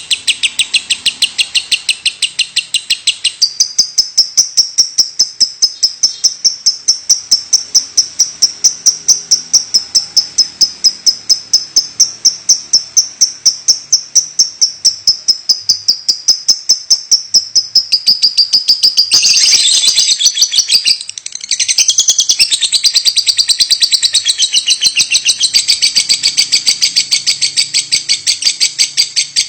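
Lovebird chirping in a fast, steady, unbroken run of high, evenly spaced notes, several a second. The chirps become denser and more varied about two-thirds of the way through.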